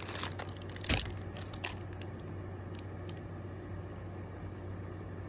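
Packaging rustling and crinkling as items are handled, with a sharp knock about a second in. After about two seconds only a steady low hum and a couple of light clicks remain.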